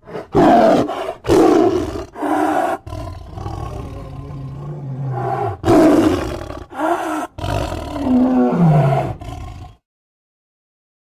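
Tiger growling and snarling: a run of loud, rough growls, with a long low rumbling growl in the middle and a growl falling in pitch near the end. It cuts off suddenly.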